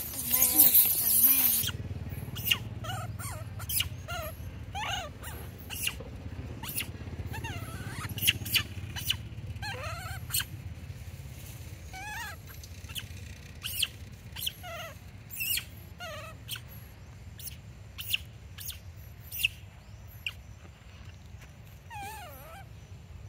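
Young macaque monkeys giving short, wavering squeaks and whimpers every second or two, mixed with sharp clicks. A loud noisy burst comes in the first second and a half.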